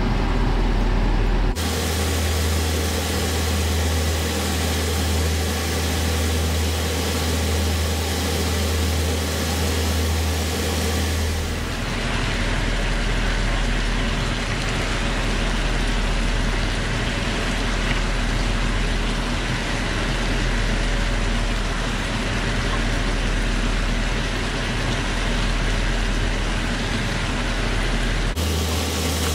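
Food sizzling in a wok over a steady low hum. The sound changes abruptly about a second and a half in, about eleven seconds in, and near the end.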